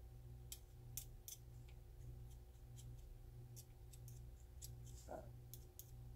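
Near silence with faint, sparse clicks and ticks as a thin punch touches the internal parts and rails of a polymer pistol frame while dabbing grease onto them. A low steady hum runs underneath, and a brief squeak comes about five seconds in.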